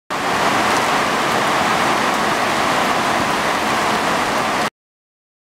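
Heavy rain pouring down in a steady hiss, cutting off abruptly near the end.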